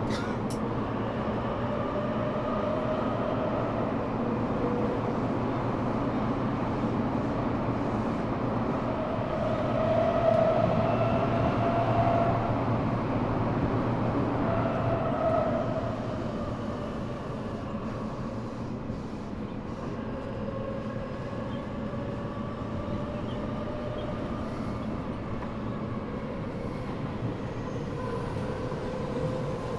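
Eidan 6000 series subway car running in a tunnel, recorded from its floor. The rumble of the car is overlaid by the high-pitched, shifting whine of its Mitsubishi three-level VVVF inverter, a unit reused from the 7000 series that sounds different from the rest of the 6000 series. The whine is loudest about ten to fifteen seconds in and quieter after that.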